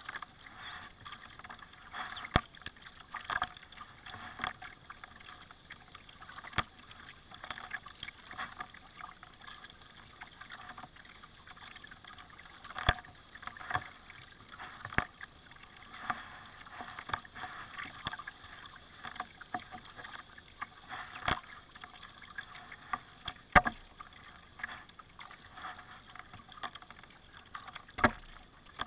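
Kayak paddling: the paddle dipping in and out of the water with continuous splashing and dripping. Sharp knocks come every few seconds, the loudest about two-thirds of the way through.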